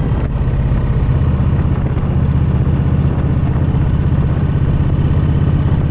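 Motorcycle engine running steadily while riding along the road, a low note with a fast, even pulse, under a rush of wind and road noise.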